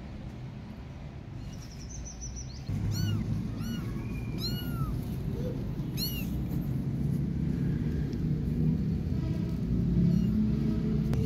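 Young kittens mewing: about four short, high-pitched, arched mews a second or so apart, a few seconds in, over steady low background noise.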